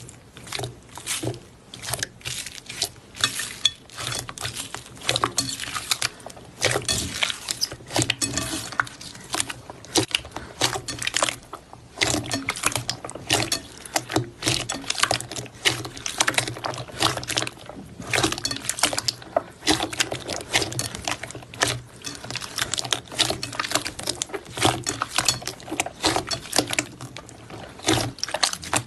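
Hands squeezing and kneading a glossy silver slime with white foam beads worked into it: a dense, irregular run of wet squelches, clicks and small pops.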